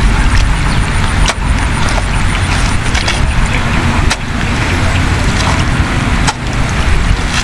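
A hoe chopping into wet mud, building up a field bund, with a few sharp strokes, over a steady low rumble of wind on the microphone.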